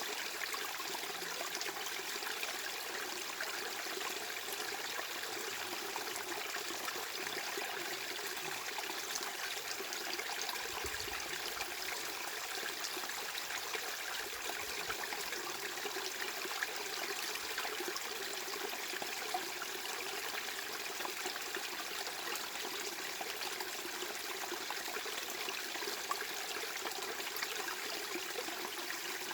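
Steady white-noise masking track with the rushing, trickling texture of running water, unchanging in level throughout, its energy lying mostly above the low bass.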